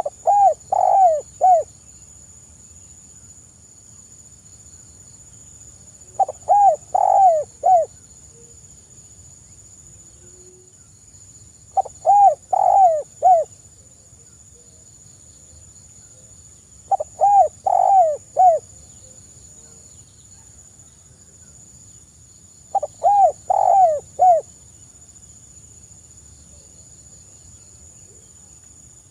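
Spotted dove cooing softly: five phrases of three or four notes each, one about every five to six seconds.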